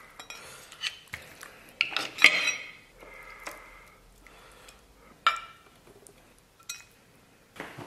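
A serving utensil clinking and scraping against an enamel plate in a handful of separate strokes as braised lamb ribs are heaped up and sauce is spooned over them, the loudest knocks about two seconds in and again about five seconds in.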